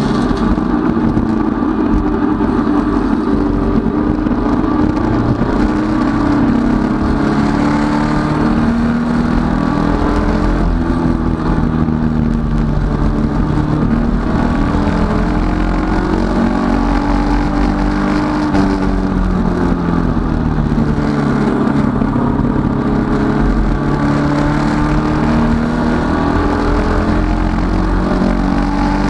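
Datsun 510 race car's four-cylinder engine heard from inside the cockpit, running hard at high revs; its pitch climbs through the gears and drops off under braking, most clearly about a third of the way in and again about two-thirds through.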